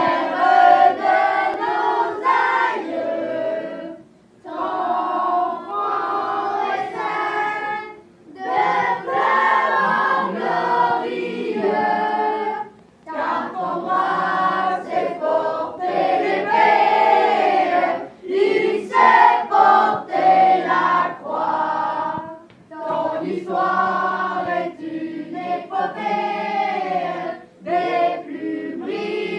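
A group of children singing a song together in unison, in sung phrases with brief pauses between them.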